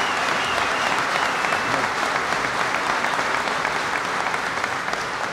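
Large audience applauding steadily, with a short whistle near the start.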